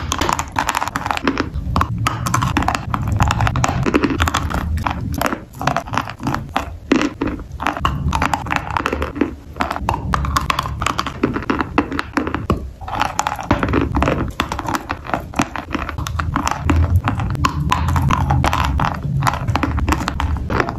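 Close-up biting and chewing of a large bar of Snezhok chalk coated in Rozovaya Uzbechka clay paste: dense, steady crunching and crackling as the chalk breaks between the teeth, mixed with wet, pasty chewing.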